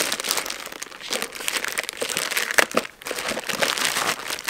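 Plastic shipping mailer and the bag inside it crinkling and rustling as they are pulled open and handled by hand, with a few sharper crackles about two-thirds through.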